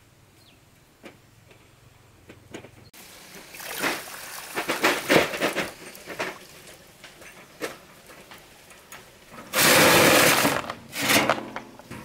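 Wheelbarrow rattling and knocking as it is pushed over rough ground, then a load of stones tipped out of it: a loud clattering rush lasting about a second, followed by a shorter second pour.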